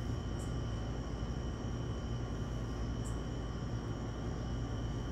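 Steady background rumble and hiss with a thin, continuous high tone, and two or three faint brief ticks; no single event stands out.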